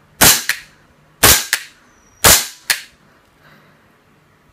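G&P custom VFC H&K 416C airsoft rifle firing three semi-auto shots about a second apart, each shot followed a fraction of a second later by a softer second crack.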